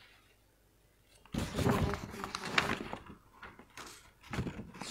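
Paper rustling and crackling as a stack of printed sheets is handled and leafed through. It starts about a second in and comes and goes.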